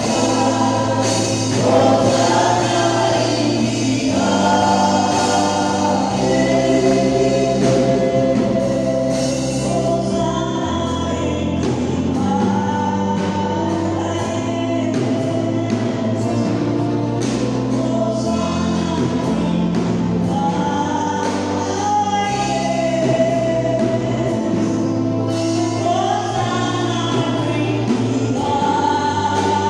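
Gospel song sung by a group of voices together, over held bass notes that change every couple of seconds.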